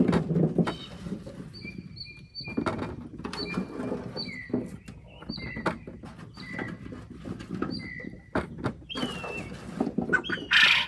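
Potatoes knocking against one another and the bucket as they are handled and dropped in, in a run of short thuds and clacks. A bird's short high chirp repeats over and over behind them.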